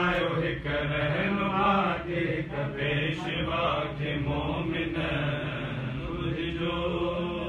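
Men's voices chanting a Sindhi devotional qasida, unaccompanied by instruments, with long held and bending notes.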